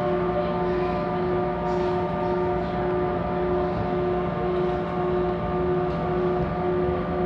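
CPTM electric commuter train running at a steady speed, heard from inside the carriage: a loud, even rumble of wheels on rail under a steady hum made of several constant tones.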